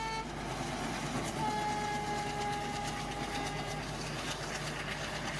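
A pair of ALCO diesel locomotives passing under power with a steady engine chug. The locomotive horn sounds: one blast cuts off just after the start, and a second long blast from about a second and a half in lasts over two seconds, its pitch falling slightly.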